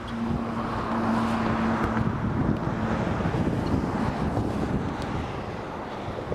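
Pilatus PC-12 single turboprop engine and propeller running, a steady low hum that fades out about three seconds in, under heavy wind rumble on the microphone.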